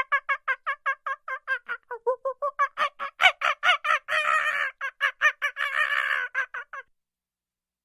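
An animal call: a fast run of short pitched notes, about five a second, growing louder through the middle with two longer harsh cries, then stopping about seven seconds in.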